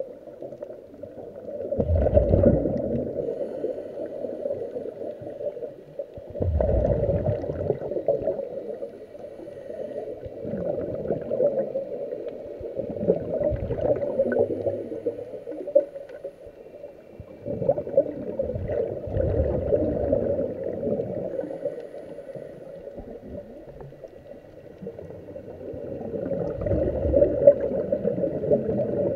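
Scuba regulator breathing heard underwater: exhaled air bubbles gurgling out in surges every few seconds, with a steadier wash between them, muffled through the camera's waterproof housing.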